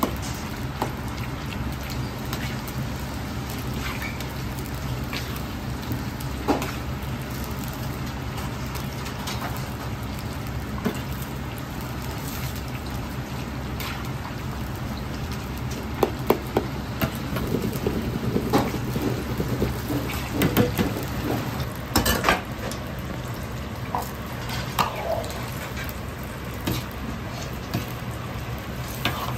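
Chicken breast pieces frying in a wok of hot oil: a steady sizzle and bubbling over the low rush of the gas wok burner. In the second half a metal ladle knocks and scrapes against the wok several times as the pieces are stirred and scooped out.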